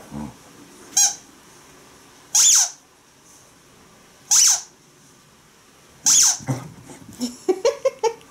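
Rubber squeaky toy football squeaked four times, a second or two apart, each a short, high squeal. Near the end a beagle gives a quick run of short whines.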